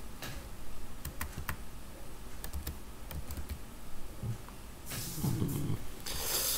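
Typing on a computer keyboard: scattered single key clicks through the first few seconds as code is edited. Near the end, a brief low murmur and a breathy hiss.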